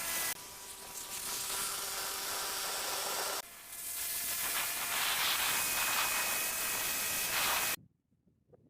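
Hudson Sawyer portable sawmill running and cutting through a hardwood log: a steady, hissing machine noise with a faint whine, in short spliced clips, cutting off abruptly near the end.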